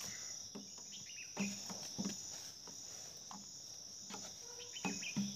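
Steady, high-pitched chorus of insects, with a few scattered knocks and rustles.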